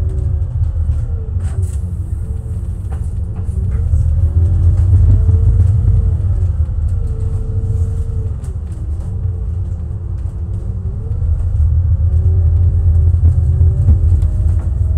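Double-decker bus engine and drivetrain heard from inside the bus: a steady low rumble with an engine note that rises and falls as the bus speeds up and slows, louder about four seconds in and again near the end.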